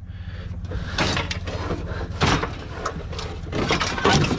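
Irregular knocks and clatters of scrap being shifted around on a loaded trailer to make room, over a steady low hum.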